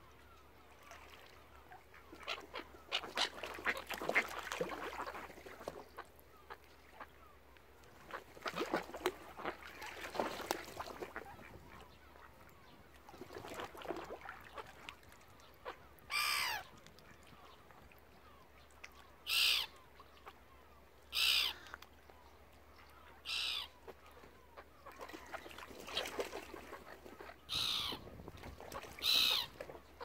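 Ducks and gulls calling at a feeding spot: two busy clusters of quacking and squabbling calls, then a run of six loud, harsh calls a second or two apart in the second half.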